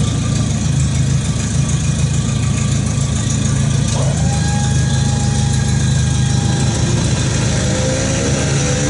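Fairmont A4-E railroad gang car's engine idling steadily.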